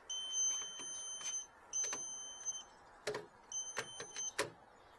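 Pen-type voltage tester giving a high, steady beep, sounding three times for about a second each with gaps between, as it is held to the terminals inside an electrical panel to find which supply lines are live. Light clicks and taps come from the tester touching the terminals.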